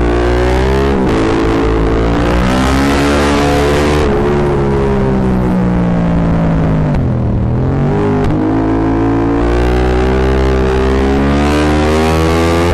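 Yamaha MT-07's parallel-twin engine through a full Akrapovic exhaust, very loud, pulling hard with quick drops in pitch at the gear changes. Through the middle the revs fall away as the rider eases off, then it accelerates again. The sound is distorted because the microphone is overloaded by the exhaust noise.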